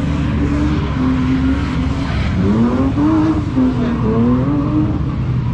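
Drift car engines revving, the pitch rising and falling again and again over a steady low engine rumble.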